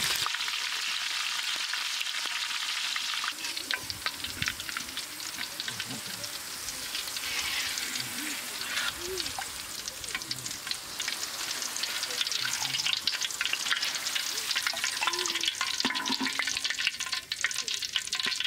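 Green chillies deep-frying in hot oil in a large wok: a steady sizzle full of crackles, as a perforated metal skimmer stirs and gathers them in the oil.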